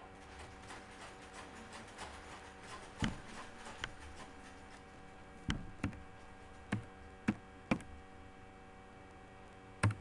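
Computer mouse clicking as drawing tools are picked and a line is drawn: a run of faint quick ticks in the first few seconds, then about eight sharp clicks at uneven spacing. A low steady electrical hum runs underneath.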